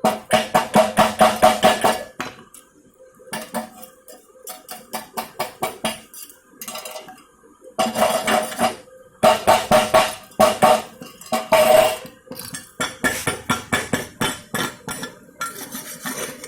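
Rapid metal-on-metal tapping with a ringing tone, coming in bursts of many quick strikes with short pauses between them; the strongest bursts fall at the start and again from about eight to twelve seconds in. A faint steady hum runs underneath.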